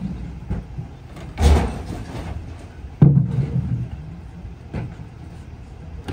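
Small split-body Ford garbage truck idling, with a loud clattering crash about a second and a half in and a heavy bang at three seconds, then a lighter knock, as trash is loaded into the rear hopper.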